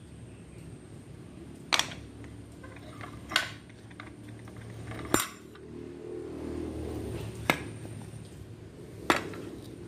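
Sharp metallic clacks, five of them about a second and a half apart, from a steel butt hinge screwed to a wooden block being swung and handled.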